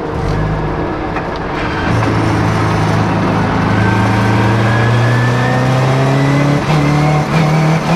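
Turbocharged Scion FR-S's flat-four engine accelerating hard under boost, its pitch rising steadily for several seconds, then breaking up briefly a few times near the end: the misfire or stumble being chased, which the owner suspects may be the engine hitting fuel cut.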